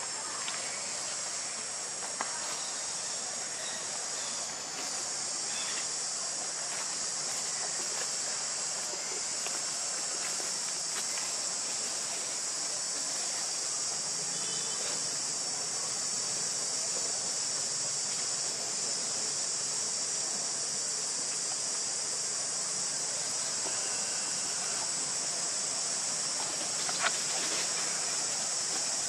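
Steady high-pitched insect chorus, with a few faint clicks and one sharper click near the end.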